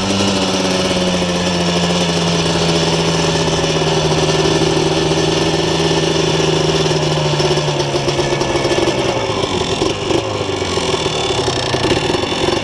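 Yamaha Blaster's 200cc two-stroke single-cylinder engine with a full aftermarket exhaust, running steadily under way with its note slowly sinking. About nine seconds in the steady note drops away and goes uneven.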